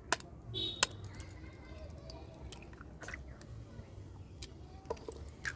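Eggs being cracked on the rim of a bowl and tipped in: a series of sharp knocks and crackles of shell, spread out across a few seconds.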